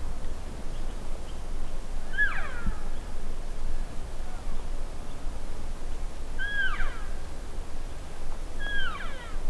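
Cow elk mewing: three short mews a few seconds apart, each a high note that drops sharply in pitch.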